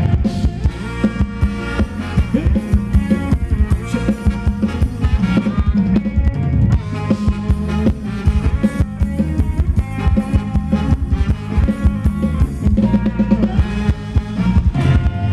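Ramwong dance music played by a live band, with a steady drum-kit beat under sustained melody lines.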